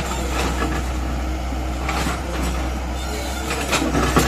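Excavator's diesel engine running steadily, with several short knocks and clatters from the machine at work, the last few coming close together near the end.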